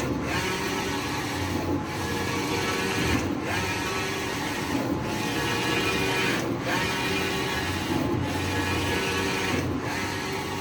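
Innolite eco-solvent printer running: the print-head carriage shuttles back and forth in a steady mechanical whir, with a brief dip at each turn about every one and a half seconds.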